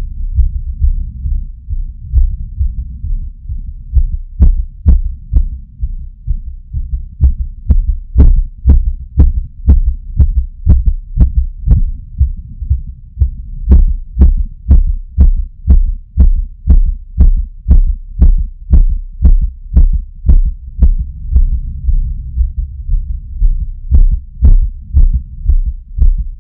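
A person's heart beating fast, heard close up as a low thumping pulse at about a hundred beats a minute, with a sharp click on each beat from about four seconds in. The heart is racing after climbing stairs.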